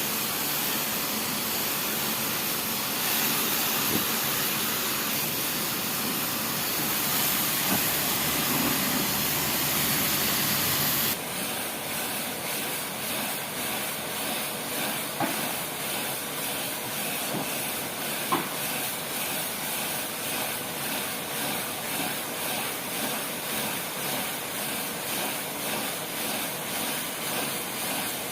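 Pressure washer (water jet machine) spraying water onto a floor to blast off moss, a steady hiss. About eleven seconds in the sound changes abruptly, becoming a little duller with a gentle, regular pulsing.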